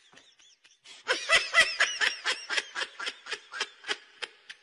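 A person laughing hard in quick, high-pitched bursts, about four or five a second. The laughter is faint at first and breaks out loudly about a second in.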